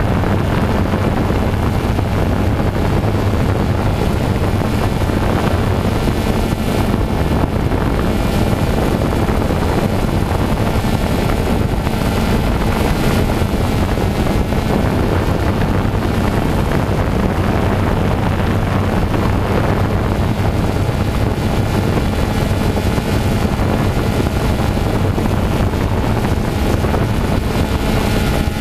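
A small multirotor drone's motors and propellers running in flight, a steady hum that holds its pitch.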